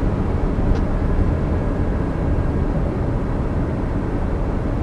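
Steady low rumble of a car driving, engine and road noise heard inside the cabin. A brief faint high tone sounds near the start.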